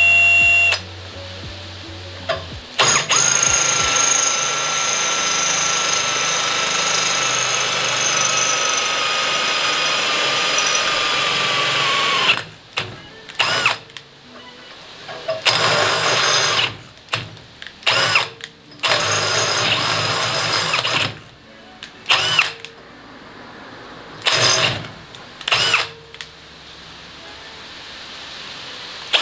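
Cordless drill boring a hole for a fender mount: a long run of about nine seconds whose whine slowly drops in pitch as the bit loads up, then a string of short trigger bursts as the hole is finished.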